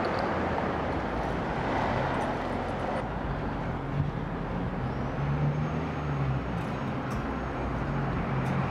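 Road traffic: the steady hum of passing vehicles, with one motor vehicle's engine tone growing stronger about halfway through and rising slightly in pitch near the end.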